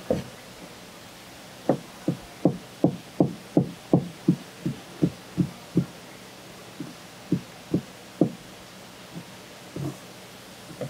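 A knife chopping on a cutting board in a run of quick, dull knocks, about three a second, then slowing to scattered strokes in the second half.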